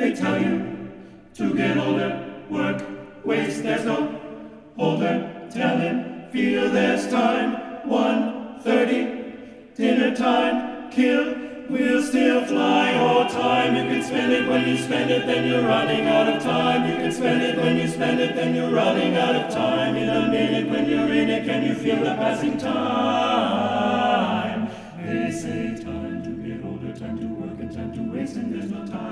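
Male a cappella vocal ensemble of eight voices singing in close harmony. The first ten seconds or so are short, detached chords about once a second; then the voices move to held, fuller chords over a low bass line.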